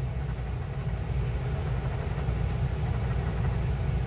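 A coin scraping the coating off a paper scratch-off lottery ticket, a steady rough scratching over a constant low hum.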